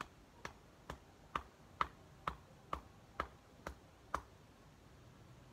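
A run of about ten light, sharp knocks from a hand tool, evenly spaced at about two a second, stopping a little after four seconds in.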